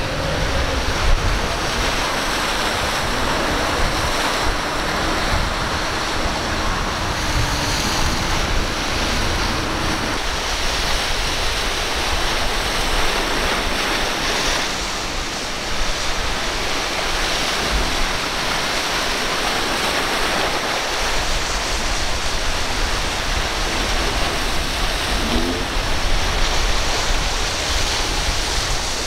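Choppy inlet surf breaking and rushing, with wind buffeting the microphone. A faint low motor hum runs under it for the first ten seconds and then cuts off.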